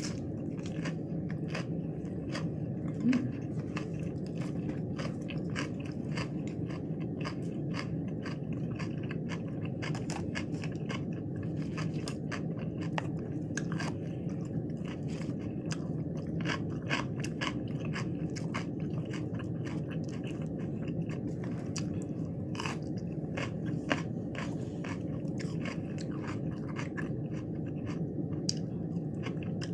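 A person chewing crunchy lettuce wraps with cucumber and pepper slices: a steady run of short, crisp crunches, a couple or more each second.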